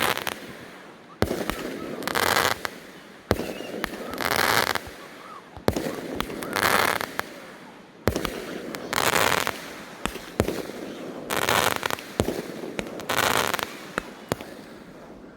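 Consumer fireworks firing in a series: a sharp bang every couple of seconds, each followed about a second later by a short burst of hissing crackle.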